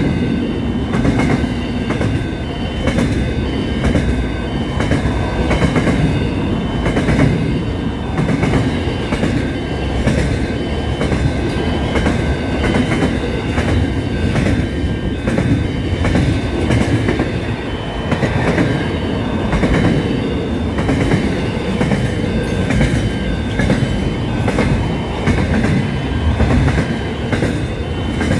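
Container freight train wagons rolling past close by: a steady rumble with repeated clicking of the wheels over the rail joints, and thin high squealing tones from the wheels that come and go.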